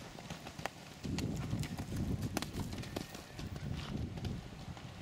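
Horse's hooves thudding irregularly on soft turf as a ridden horse lands from a hedge jump and canters away, with sharp clicks among the hoofbeats.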